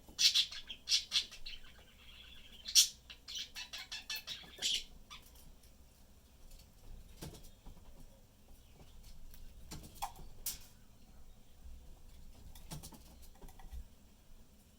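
Pet budgies chirping in quick, dense runs of short high notes for about the first five seconds, then only a few scattered clicks and taps.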